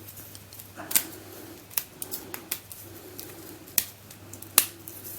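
Heart-shaped plastic magic snake puzzle being twisted and handled: irregular sharp plastic clicks, about six or seven, at uneven intervals.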